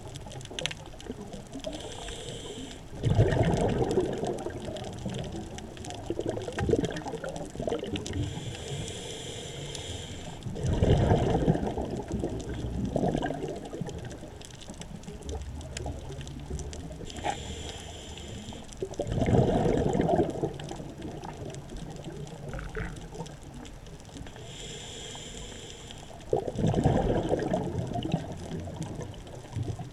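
Scuba diver breathing through a regulator underwater: a short hiss on each inhale, then a longer bubbling rush of exhaled air, four breaths about eight seconds apart.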